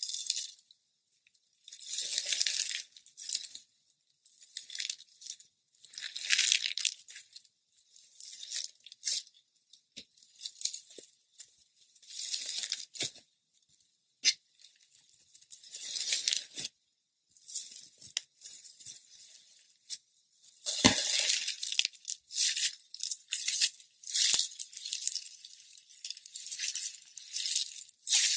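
Slime being squeezed and worked by hand, in repeated crackling bursts a second or two long with short pauses between them.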